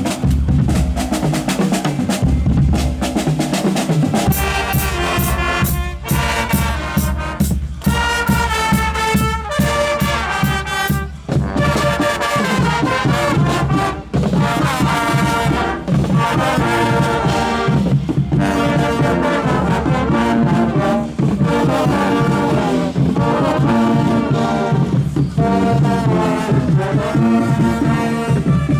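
Guggenmusik carnival band playing: at first mostly drums, then brass (trumpets and trombones) joins about four seconds in and plays a loud, rhythmic tune over the drums.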